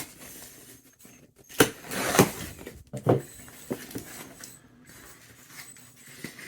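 Packaging being handled and opened: irregular rustling and tapping of cardboard and plastic, with a few sharper knocks about one and a half to two seconds in.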